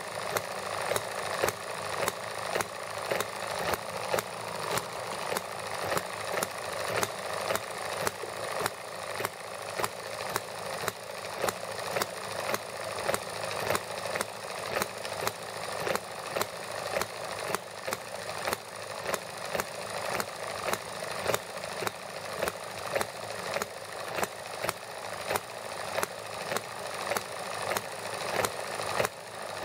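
Small model hit-and-miss gasoline engine running, firing with a regular sharp pop somewhat more than once a second over a steady mechanical clatter.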